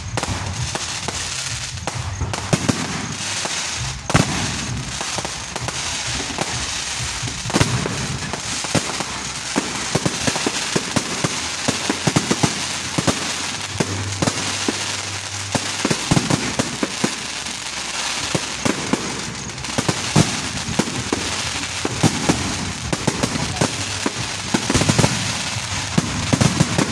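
Aerial fireworks display: shells bursting overhead with a continuous dense crackling and many sharp bangs throughout.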